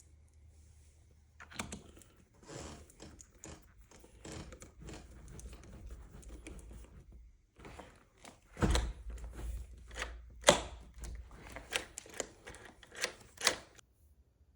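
Irregular clicks, knocks and rattles of metal door-lock parts being handled and fitted, with a few louder knocks about two-thirds of the way through.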